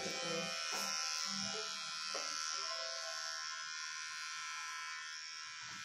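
Electric hair clippers buzzing steadily as they shave a man's head down to stubble.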